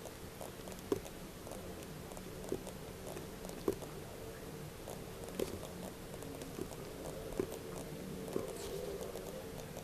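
Computer mouse clicks and keyboard keystrokes, about half a dozen sharp clicks spaced irregularly a second or two apart, over a faint steady hum.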